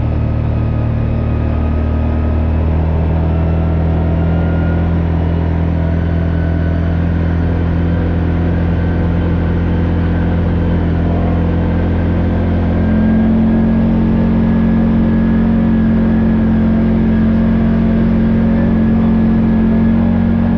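Vehicle engine running at a steady speed, a low drone whose pitch shifts about two seconds in and again about thirteen seconds in, a little louder after the second change.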